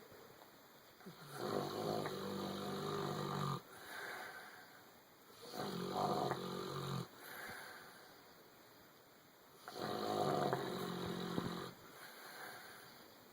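A sleeping dog snoring: three long, loud snores about four seconds apart, each followed by a shorter, softer breath.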